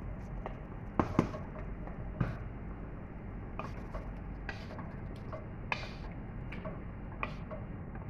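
Wooden spoon stirring chicken and vegetables in cream in a pot, knocking and scraping against the pot in irregular clicks, over a steady low hum.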